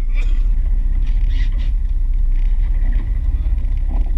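Steady low rumble aboard a small fishing boat at sea, with faint voices under it.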